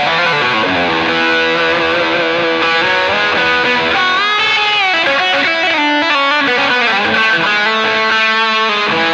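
Gibson SG electric guitar played with crunchy overdrive through a 1969 Marshall JMP 50 and a Greenback-loaded 12-inch speaker. It plays a line of sustained, ringing notes, with a string bend up and back down about four seconds in.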